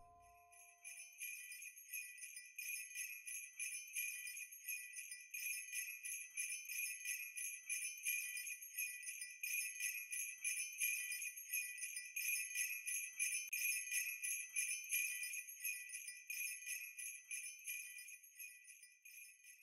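Jingle bells shaken in a quick, steady rhythm, starting about half a second in and fading out near the end.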